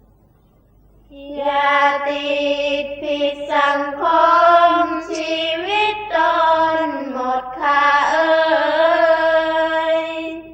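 Sarabhanya chanting: a Thai Buddhist verse sung in the Isan melody, with long drawn-out, gliding notes. It starts about a second in and cuts off abruptly at the end.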